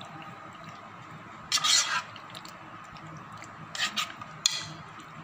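A spoon stirs raw chicken pieces through a thick marinade in a metal pot. It scrapes against the pot about a second and a half in and again a couple of times near the end.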